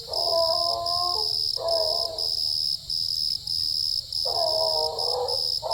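Coonhound barking treed, calls of about a second each with a longer pause in the middle: the sign of a dog holding a raccoon up a tree. Insects trill steadily behind it with regular short breaks.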